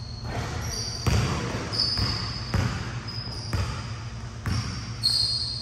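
Basketball bouncing on a court, about seven bounces mostly under a second apart, with high thin squeaks in between.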